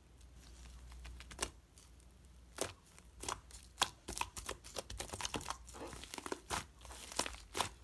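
Fluffy shaving-foam slime being squished and stretched by hand, giving irregular crackling and popping clicks that start sparse and become dense after about two and a half seconds.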